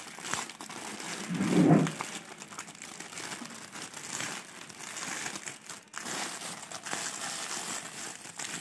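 Plastic courier mailer bag being torn open and handled, its plastic film crinkling and crackling with many small clicks. A brief low murmur of a voice about a second and a half in.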